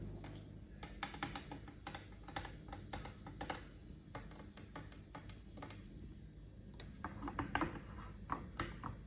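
Quick, irregular light clicks and taps in two clusters, one about a second in and one near the end, from hands working on a washing machine during cleaning.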